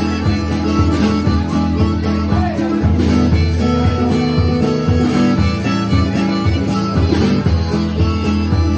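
Live blues band playing an instrumental passage without singing: strummed acoustic guitar and drum kit, with a sustained lead line that bends in pitch over them.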